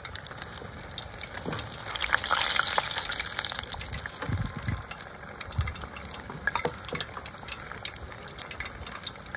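Battered food deep-frying in a pot of hot oil: steady sizzling with fine crackles, loudest about two seconds in.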